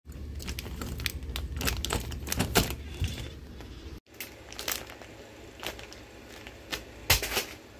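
Handling noise of a crinkly Haribo Goldbears plastic candy bag held in the hand, with a run of clicks and knocks that includes a door knob being turned. About four seconds in, the sound cuts and continues more softly with scattered crinkles and clicks.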